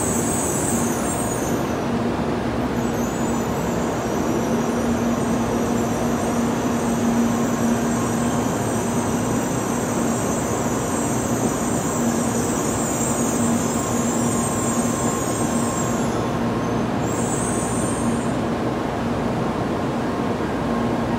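Steady hum and hiss of a stationary N700A Shinkansen train standing at the platform with its onboard equipment running, a low tone held throughout. The high hiss drops out briefly twice.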